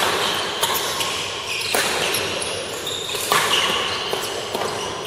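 Badminton rackets striking a shuttlecock during a doubles rally: four sharp hits spread over the first three and a half seconds, then the rally stops.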